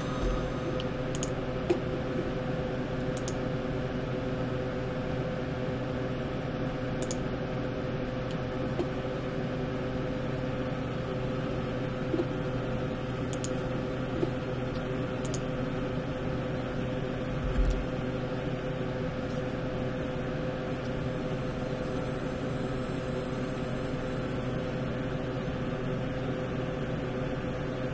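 Steady machine hum with a few fixed tones, typical of a computer's fan, with a handful of scattered sharp clicks from computer keys or a mouse.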